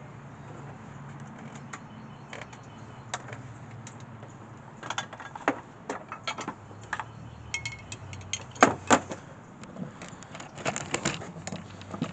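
Metal hand tools clinking and clanking as they are handled, a run of irregular sharp clicks that grows busier about halfway through, with two louder clanks close together. A steady low hum sits underneath.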